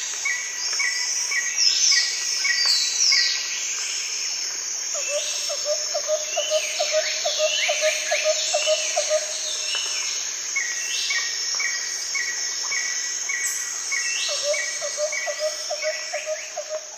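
Forest soundscape of several birds calling over a steady high insect drone. One bird repeats a short note about twice a second, others give quick falling whistles, and a low, rapid rattling call runs from about five to nine seconds in and starts again near the end.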